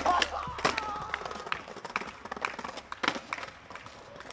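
Scattered sharp taps and clacks of skateboards at a skatepark, thinning out and fading away near the end.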